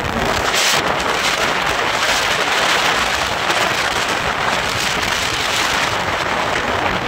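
A steady, even rushing noise without any clear tone or distinct strikes.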